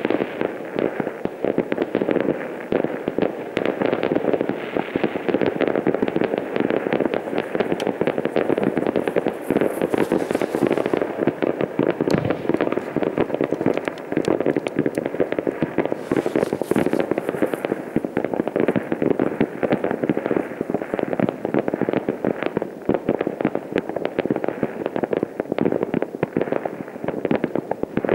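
Many fireworks and firecrackers going off across a town at once: a dense, unbroken crackle of overlapping bangs and pops. Two brief high hisses come in about ten and seventeen seconds in.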